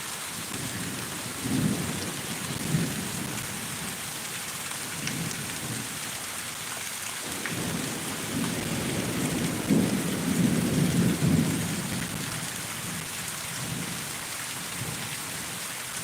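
Thunderstorm: steady rain hissing down, with thunder rumbling over it. There is a short rumble about a second and a half in with a crack soon after, and a longer rolling peal from about eight to twelve seconds in.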